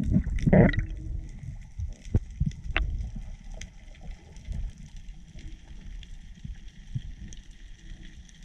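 Underwater sound through a GoPro's waterproof housing as a freediver swims along the seabed: low rushing and rumbling of water against the housing, loudest in the first second, with scattered sharp clicks.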